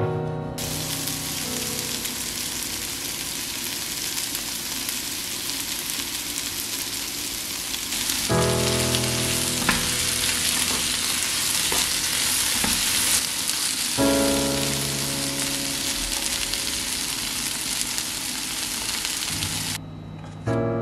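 Potato and zucchini pieces frying in a pan, a steady loud sizzle that cuts off suddenly near the end.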